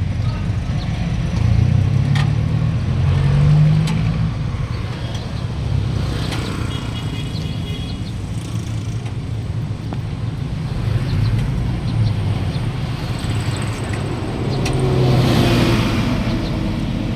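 Road traffic: motor vehicle engines running and passing, with a steady low rumble that swells and fades. A brief high tone sounds about seven seconds in, and a vehicle passes close near the end.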